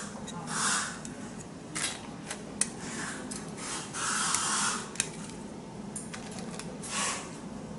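Light handling noise at a workbench: a few sharp clicks and several soft swishes as small parts and a reel of tape are picked up and moved.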